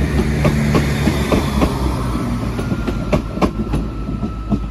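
ScotRail Class 170 Turbostar diesel multiple unit moving through the station: wheels click over rail joints in irregular pairs above a steady low diesel drone.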